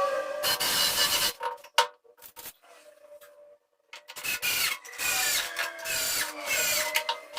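A hand tool scraping across wood in long strokes with a faint squeak. There is a single click about two seconds in, then a quieter pause, then one long stroke of about three seconds.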